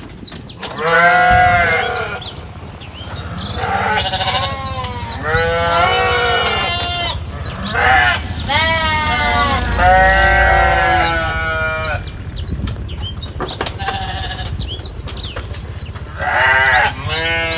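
Several farm animals bleating over and over, at different pitches. Each wavering call lasts about a second, and some calls overlap.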